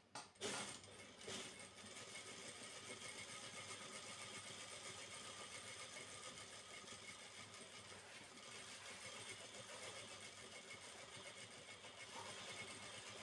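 A few sharp clicks, then a foot-pedal sewing machine running steadily as it stitches, with a fast, even rattle of the needle.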